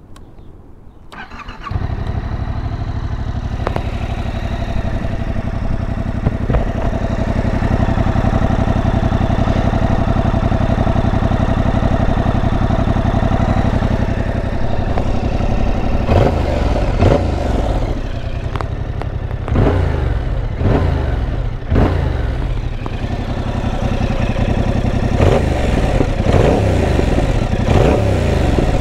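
A 2021 Yamaha MT-07's parallel-twin engine through its stock exhaust: started with a brief crank, then idling steadily. In the second half it is blipped repeatedly, revving up and falling back to idle several times.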